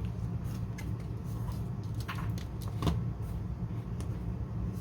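A few light clicks and taps as a small power plug is handled and connected to a model's LED wiring. The sharpest click comes about three seconds in, over a steady low background rumble.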